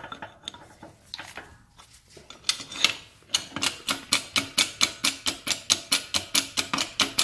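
Press being worked to force a dimple die into thin 22-gauge sheet steel. A few scattered clicks, then from about three seconds in a steady run of sharp mechanical clicks, about four a second.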